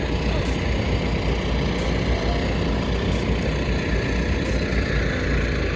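Vehicle engine running steadily at a low, even idle, with a deep rumble; the vehicle is bogged.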